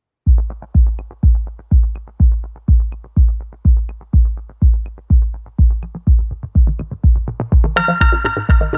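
Electronic dance music: a steady kick drum at about two beats a second with off-beat hi-hat ticks, joined near the end by a bright synthesizer chord.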